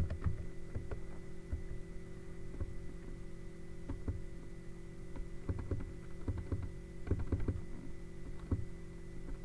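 Computer keyboard keystrokes, scattered irregular clicks with a few short runs, over a steady electrical hum.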